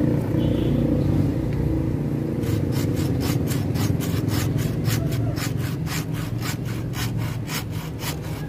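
Small hand saw cutting across a woody bougainvillea trunk, with steady back-and-forth strokes of about three a second that begin about two seconds in. The trunk is being sawn off level to prepare the rootstock for grafting.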